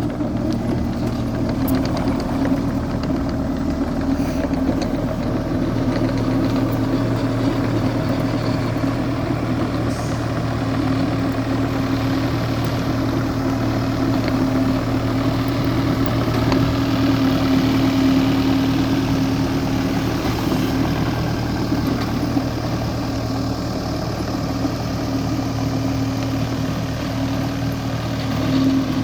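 Diesel engine of a New Holland C327 skid steer running steadily at idle.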